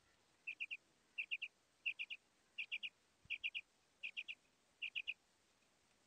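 Quail calling: a quick three-note call repeated seven times in a steady rhythm, one phrase about every 0.7 s. It is a recorded female quail call played as a lure.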